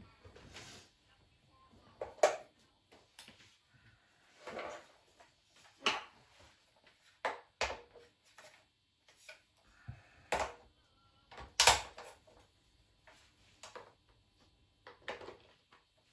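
Irregular clicks and knocks of hard parts being handled and fitted, as a Kirby vacuum cleaner is worked on by hand; the loudest knocks come about two seconds in and just before the twelve-second mark.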